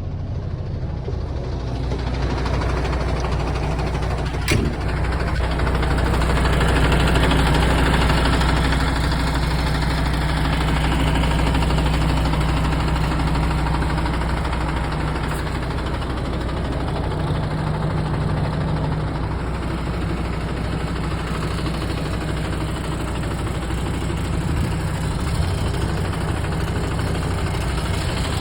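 MAN TGX 21.440 truck's diesel engine idling steadily, with a single sharp click about four and a half seconds in.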